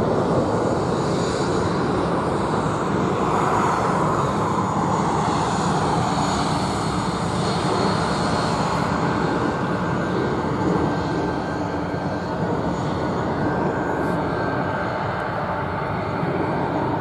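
Jet noise from the Kalitta Air Boeing 747's four turbofan engines: a steady rushing sound with a faint high whine.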